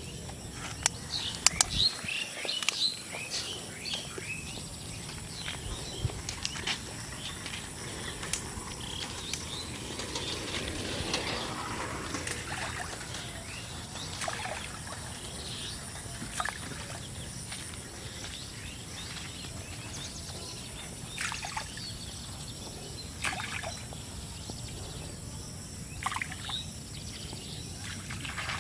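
Outdoor ambience with small birds chirping and calling on and off, over a steady background hiss. A few sharp clicks come in the first couple of seconds.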